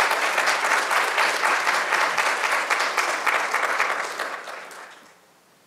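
Audience applauding, a dense steady clapping that fades and dies away about five seconds in.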